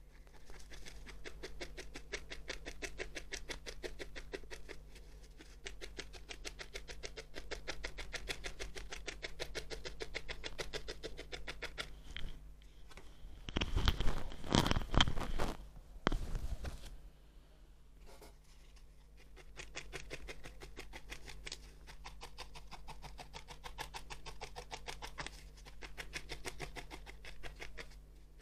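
A felting needle stabbing quickly and repeatedly through wool into a felting pad: a fast, even run of soft pokes as a wool dog's head is shaped. About halfway through, a louder stretch of handling noise on the desk interrupts it for a few seconds.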